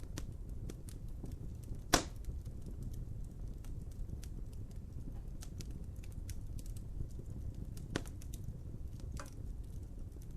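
Wood fire crackling over a steady low rumble of flame, with scattered small snaps and a loud pop about two seconds in, and smaller pops near eight and nine seconds.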